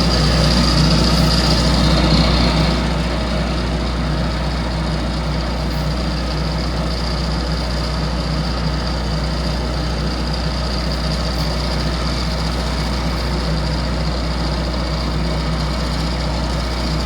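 Heavy construction machinery at a pipeline work site running steadily, a loud low engine drone with a high whine on top that fades out about two and a half seconds in.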